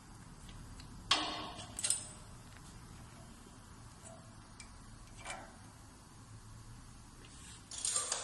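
Shoe-making machine working, with a few short, sharp mechanical clacks and bursts of noise: about a second in, near two seconds, around five seconds and near the end.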